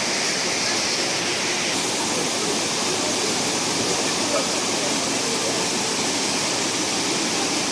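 Steady rushing of fast water in a rocky mountain valley stream, a continuous even hiss-and-roar with no breaks.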